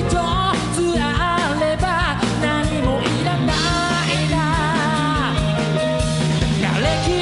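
Live rock band with vocals: a singer's wavering melody over electric guitar, bass and a steady drum beat.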